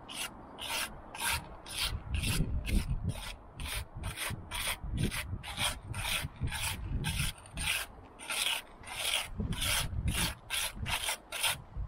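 Steel brick jointer scraping mortar off a trowel and pressing it into the brick joints while pointing: quick repeated scrapes, about three a second.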